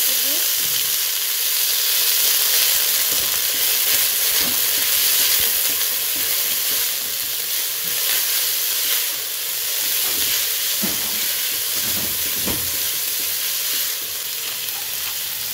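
Diced carrots, bell peppers and green beans sizzling steadily in hot oil in a pot, stirred with a spatula.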